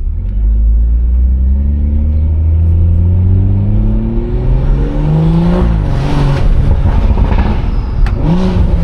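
BMW 340i's turbocharged B58 inline-six with a modified exhaust accelerating hard, the revs climbing steadily for about five seconds. The revs then drop off into a scatter of crackles and pops on the overrun, with a short blip of revs near the end.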